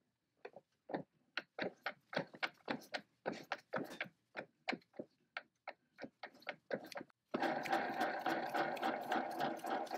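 Lathe cutting a 1/8-40 Whitworth thread on a thin rod with a button die in a die holder: a run of short, separate cutting strokes, about three a second. About seven seconds in, the lathe starts running steadily with a rapid regular ticking.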